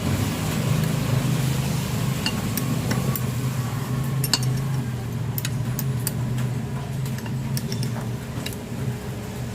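Metal tools clinking and tapping at irregular moments while the 12 mm bolts on a fuel pump bracket are worked loose, over a steady low mechanical hum.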